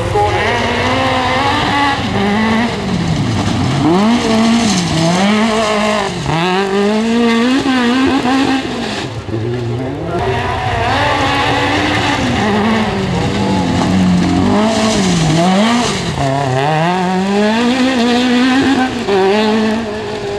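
Autocross buggy engine racing on a dirt track, revving hard, its pitch climbing and dropping over and over with gear changes and throttle.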